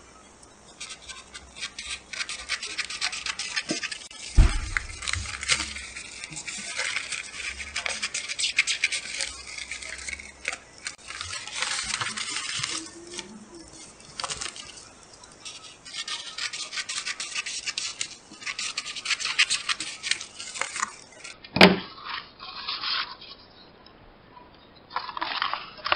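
Scissors cutting through clear self-adhesive laminating sheet: a long run of quick snips with the plastic film crinkling and rustling. A low thump about four seconds in and a sharp click near the end.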